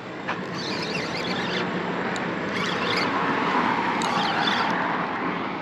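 A road vehicle passing on the bridge, its tyre and engine noise swelling to a peak about halfway through and then fading.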